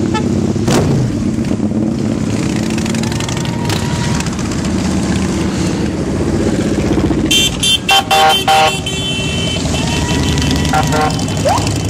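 Motorcycles rumbling past one after another in a procession, engines running steadily. About seven and a half seconds in, a vehicle horn sounds a quick series of short honks, with a couple more short honks near the end.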